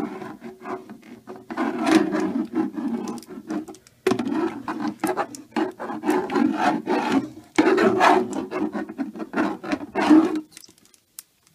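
Toilet brush scrubbing the inside of a porcelain toilet bowl with fast back-and-forth strokes. It goes in three bouts with brief pauses between them and stops about ten seconds in.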